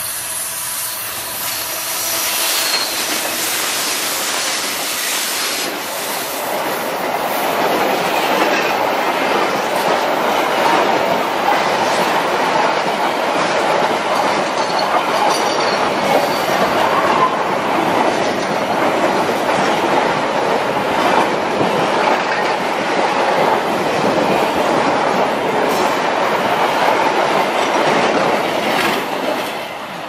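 Freight train passing close by: the diesel locomotive approaches and goes past, then a long string of empty flat wagons rolls by at speed with steady wheel-on-rail noise and now and then a faint wheel squeal. The sound drops away near the end as the last wagon passes.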